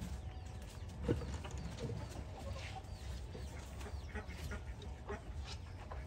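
Chickens clucking softly, scattered short calls, with a single sharp knock about a second in.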